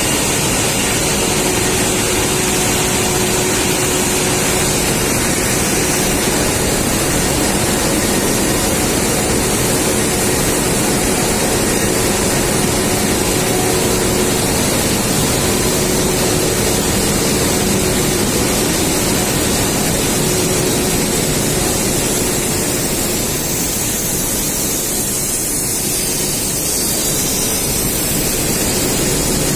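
Extruder machine running: a loud, steady mechanical noise with a faint constant hum in it, easing slightly for a few seconds in the second half.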